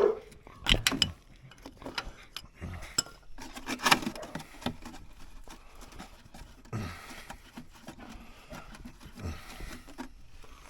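Scattered clinks and knocks of metal tools and containers being handled, with the loudest knocks about a second in and about four seconds in.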